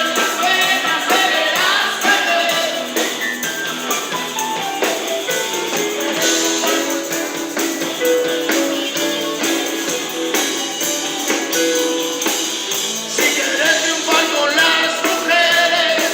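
Blues band playing live: a busy band mix with a singing voice or sliding lead lines over it.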